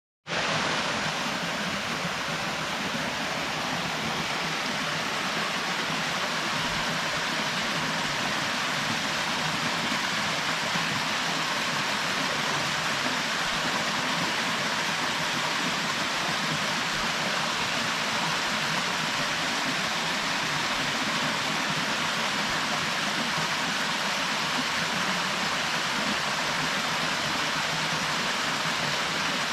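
Waterfall pouring into its plunge pool: a steady, even rush of falling and splashing water.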